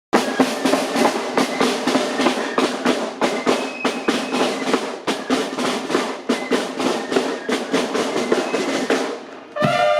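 Military marching band: snare drums play a rapid cadence with brass. Near the end the drumming breaks off and sustained brass notes begin.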